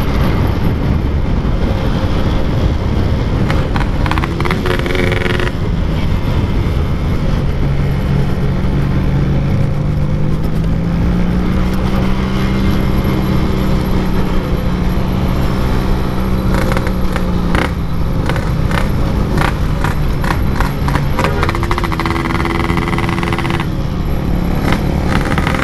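Yamaha RX-King 135 cc two-stroke single-cylinder motorcycle with a packing-power exhaust, ridden hard. The engine holds a steady note, then revs up with rising pitch about four seconds in and again near the end.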